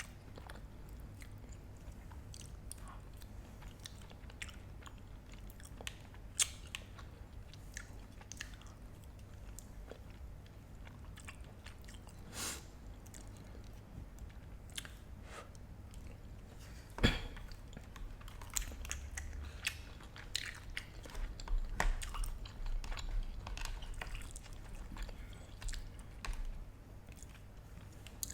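Close-miked eating: a person chewing and biting food, with soft crunches and small wet mouth clicks. One sharp click stands out about halfway through, and the chewing gets busier in the second half.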